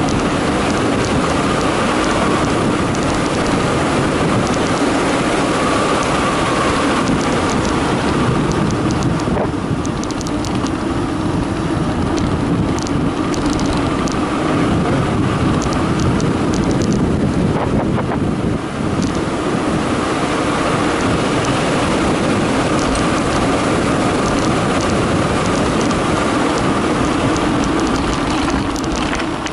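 Wind rushing over the microphone and tyres rolling on concrete as a Carraro Big 827 mountain bike descends at speed, with scattered rattles and clicks from the bike.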